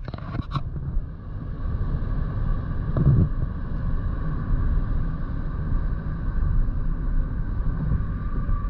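Road noise heard inside a moving vehicle's cabin: a steady low rumble of tyres and engine at speed, with a faint steady whine above it. A few sharp clicks sound right at the start, and a single bump about three seconds in.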